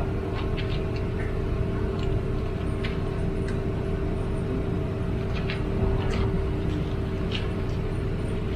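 Motor vehicle in motion: a steady low engine and road rumble with a constant hum and a few light clicks and rattles.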